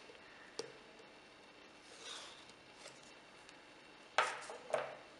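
Handling noise from a small cardboard box in thin plastic wrap, as it is being opened: a light tap about half a second in, a faint rustle around two seconds, and two short scraping rustles a little after four seconds.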